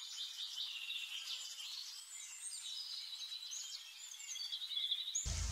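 Small birds chirping and trilling over faint outdoor hiss, all high-pitched with no low sound. A low rumble comes in near the end.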